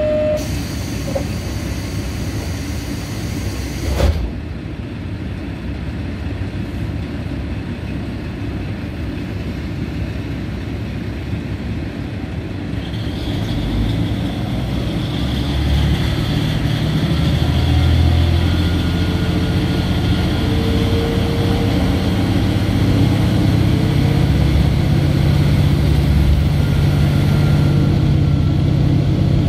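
KiHa 47 diesel railcar pulling away from a station: a high steady tone for the first four seconds ends in a thump as the doors shut. From about thirteen seconds in, the diesel engine revs up and grows louder as the car accelerates.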